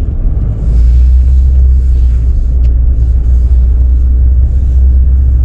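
Low, steady rumble of a car driving slowly, heard from inside the cabin; it grows louder about a second in and then holds steady.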